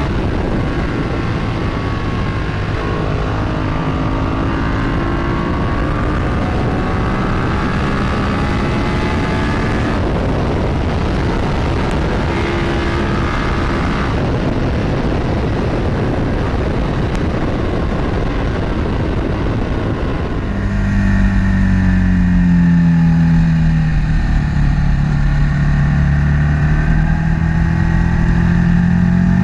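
1995 Ducati 748 SP's 90° V-twin running through a 50mm Termignoni race exhaust while being ridden, with wind rushing past. The engine note rises and falls with the throttle. About two-thirds of the way through it gets louder and clearer, dipping and then climbing in pitch.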